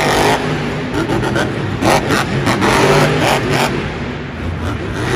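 Monster truck engine revving hard, surging up and down as the truck drives and jumps.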